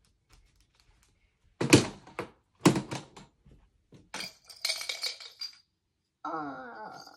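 Two heavy thumps about a second apart, then a light clatter of small hard objects, and near the end a short wavering vocal sound from a child.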